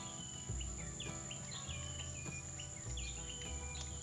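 Outdoor insect chorus: a steady high-pitched drone, typical of crickets, with small birds giving short, repeated chirps that dip in pitch. A low rumble comes and goes underneath.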